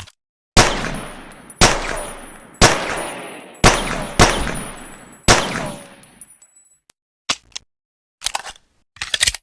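Pocket pistol firing six shots, roughly a second apart with two close together, each trailing off in an echo. A few short clicks follow near the end.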